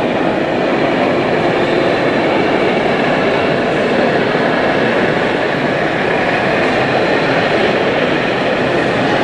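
Steady, even background noise of a busy model-railway exhibition hall around an H0 layout, with no single sound standing out.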